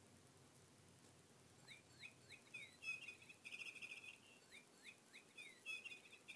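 Bird-song chirping: a short phrase of quick rising and falling whistles ending in a trill, starting about two seconds in and repeated once in the same form.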